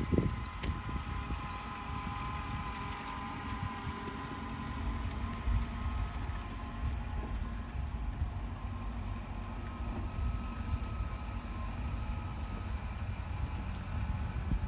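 Wind buffeting the phone's microphone: an uneven low rumble that rises and falls, with a faint steady hum above it.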